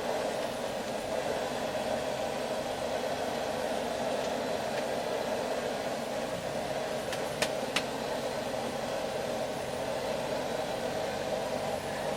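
Forge running with a steady whoosh while a railroad spike heats in it. About seven seconds in come two sharp clicks, less than half a second apart.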